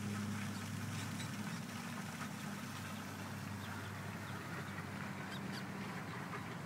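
Mallard ducklings calling with a few short, high peeps over a steady low hum.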